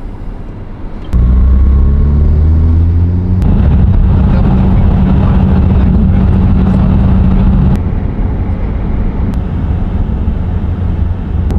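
Car engine heard from inside the cabin. It comes in loud about a second in and rises in pitch for a couple of seconds as the car accelerates, then holds a steady note at speed, becoming quieter and rougher later on.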